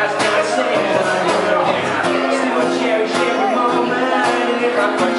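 Music with a steady beat and held chords, guitar-led.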